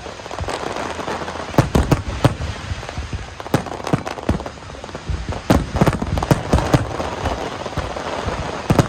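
Fireworks going off: a dense, irregular string of sharp cracks and bangs over a continuous crackle.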